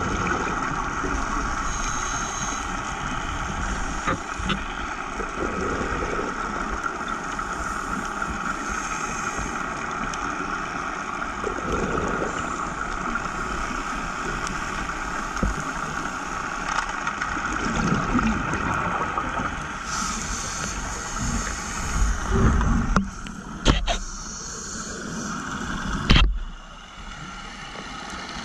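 Underwater sound through a diving camera: a steady hiss with bursts of bubbles from a scuba diver's exhalations every few seconds, the loudest near the end.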